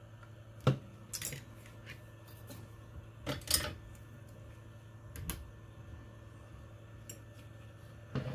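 Small hand tools clicking and clattering against a workbench in a few separate short bursts, over a steady low hum.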